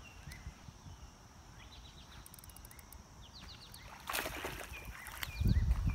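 Birds chirping in short falling notes over a quiet pond bank. About four seconds in there is a brief splash as the hooked hybrid bluegill is brought to the bank, followed by a low thud near the end.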